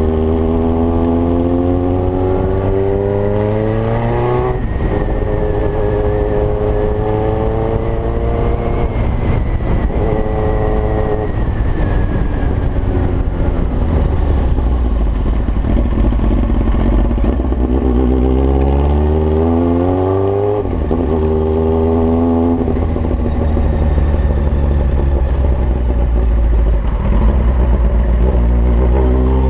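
Kawasaki ZX-9R inline-four motorcycle engine running with no exhaust silencer, loud and raw. It revs up through the gears, the note climbing and then dropping sharply at each shift, twice clearly, and ends rising again.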